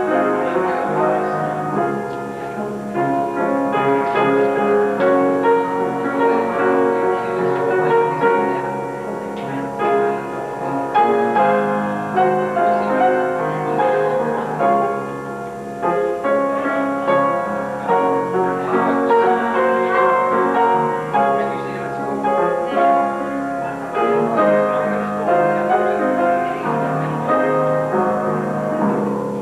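Instrumental music with piano, slow held notes moving through changing chords without a break.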